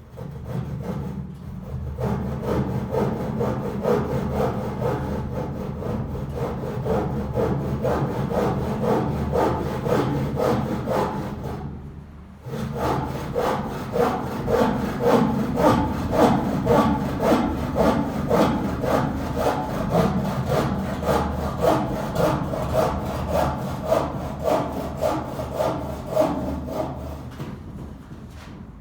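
Hand saw cutting through wood in steady back-and-forth strokes, about two a second, with a brief pause about twelve seconds in before the strokes resume.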